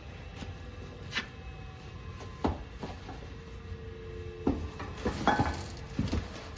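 Small bench-grinder attachments and packing being handled: a series of scattered knocks and clinks, several in a row near the end.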